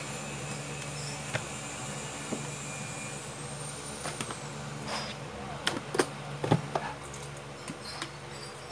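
Notebooks being handled and put down on a desk: scattered light taps, then a cluster of louder knocks about six seconds in, over a steady low hum.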